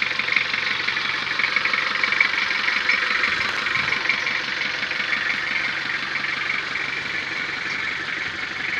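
Mitsubishi L300 dump pickup's engine running steadily at idle with a fast ticking clatter.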